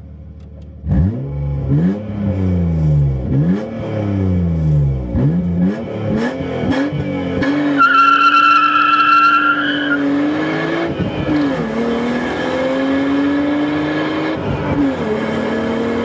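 BMW E36 328i's M52B28 straight-six accelerating hard from inside the cabin. The engine pitch swings up and down in the first few seconds, then climbs and drops sharply at each gear change. A high steady squeal is heard for about two seconds midway.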